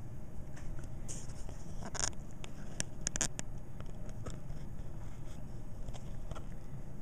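Soft rustling and light clicks of a fabric sock puppet being handled, with a cluster of short scrapes and clicks between about one and three and a half seconds in, over a steady low hum.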